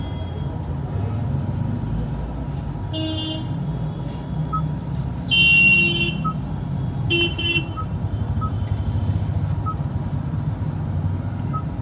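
Vehicle horns honking over a steady low traffic rumble: three short toots about three, five and a half and seven seconds in, the middle one loudest and longest.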